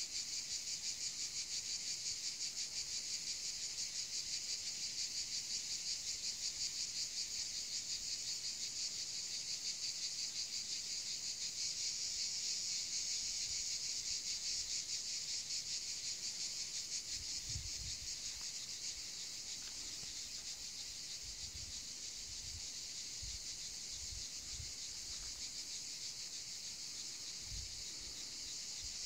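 Dense daytime chorus of insects: a steady, high shrill with a fast, even pulsing that eases slightly about two thirds of the way through. A few faint low bumps come in the second half.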